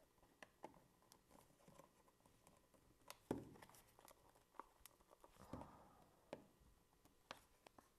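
Faint scattered clicks and rubbing from hands gripping and flexing the plastic case of a Garmin nüvi 40 GPS, trying to pop it open at its clips, with one louder knock a little over three seconds in.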